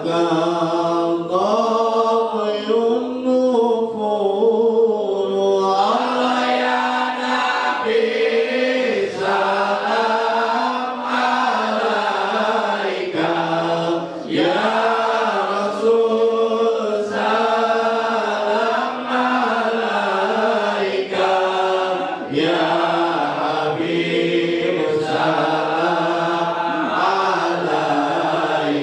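A man chanting an Arabic devotional song in praise of the Prophet (sholawat) into a microphone, in long drawn-out melodic lines with short pauses for breath, and other men's voices softly joining in.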